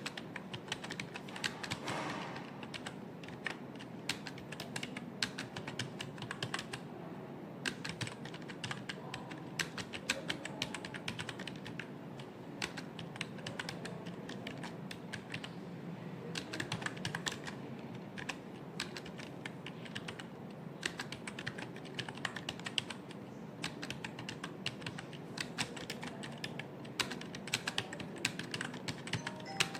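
Fast, continuous typing on a computer keyboard: rapid key clicks in quick runs with short pauses.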